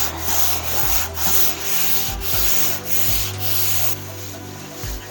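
Hand-sanding dried drywall joint compound, sandpaper scraping across the mud in rhythmic back-and-forth strokes about twice a second, which stop about four seconds in.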